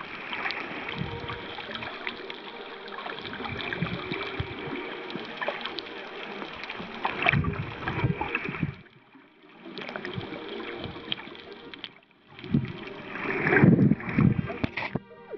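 Water sloshing and gurgling around a submerged camera just below the surface, with uneven swells of noise and two louder splashy surges about seven and thirteen seconds in. The noise dips away briefly around nine and twelve seconds.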